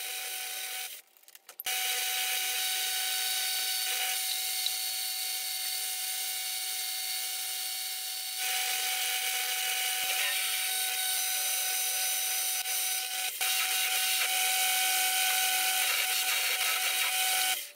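Hafco AL250G metal lathe running, with a drill in the tailstock chuck cutting into the spinning part: first a centre drill, then a twist drill boring it out. Steady machine hum with a cutting hiss, a brief dropout about a second in, and small jumps in level where the clips change.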